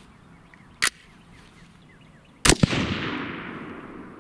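A sharp click about a second in, then a single shot from an AR-15 chambered in .223 Wylde about two and a half seconds in, its report echoing and fading away over a second and a half.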